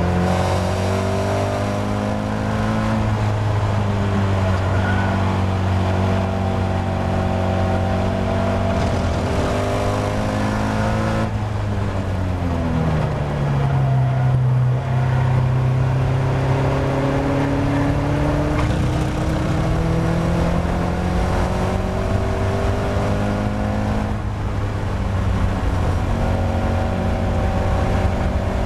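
Caterham Seven race car's four-cylinder engine under hard acceleration, heard from inside the open cockpit with wind rush. About halfway through the revs fall sharply as the car brakes and changes down for a corner, then climb again through the gears.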